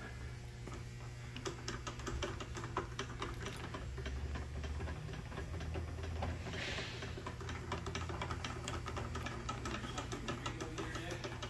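Rapid, uneven clicking of a hand-cranked screw mechanism as its crank is turned, working a model landing-gear strut. A steady low hum runs underneath.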